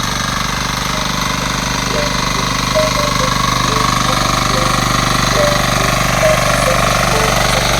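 A four-wheel power weeder's engine running steadily with a fast, even clatter.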